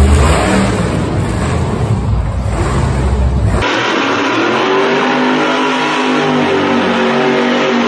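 Monster truck engines running hard. A dense, deep rumble cuts off about three and a half seconds in and gives way to engines revving with a clear pitch that rises and falls.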